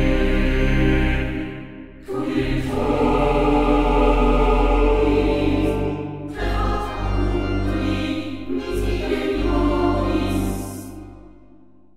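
Background music with choral singing, changing phrase twice and fading out near the end.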